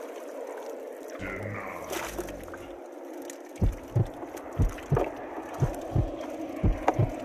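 Water sloshing around a wading fisherman. About halfway through, an irregular run of short, dull thumps and knocks begins, two or three a second, from freshly netted tilapia flapping against the plastic tub.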